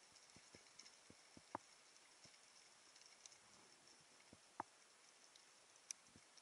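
Very faint underwater ambience: a steady hiss with scattered short clicks and pops, two louder clicks about a second and a half and four and a half seconds in, and a sharp high tick near the end.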